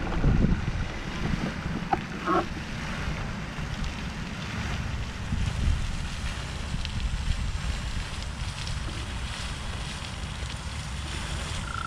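Wind rumbling on the camera microphone, over a steady rushing hiss from a fountain's water jet.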